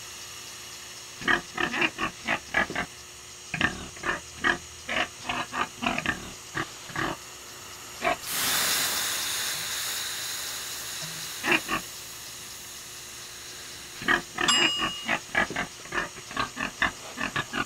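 A pig grunting in short clusters of quick grunts. About eight seconds in, water is ladled onto hot sauna stones: a sudden hiss of steam that fades away slowly over several seconds, before the grunting starts again near the end.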